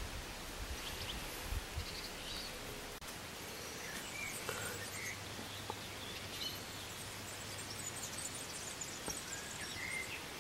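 Steady outdoor background hiss with scattered short bird chirps. A few soft knocks come in the first two seconds.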